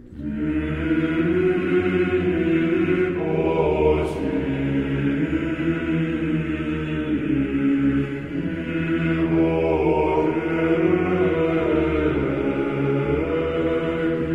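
Background music of chanting voices singing long held chords, with a new phrase starting at the outset and the chord shifting every few seconds.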